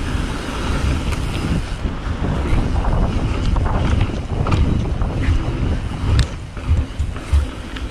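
Wind buffeting an action camera's microphone as a mountain bike is ridden along a trail, with tyre rumble and irregular sharp clicks and rattles from the bike over the bumps.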